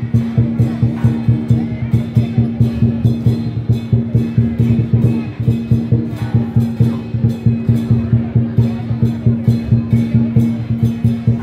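Lion dance percussion of drum, gong and cymbals, beating a fast, even rhythm of about four strokes a second over a sustained low ring.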